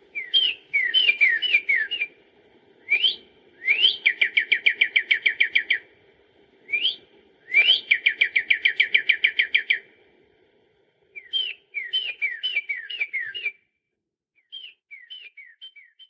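A songbird singing in phrases of clear down-slurred whistles and fast trills, with short pauses between phrases and a quieter last phrase near the end.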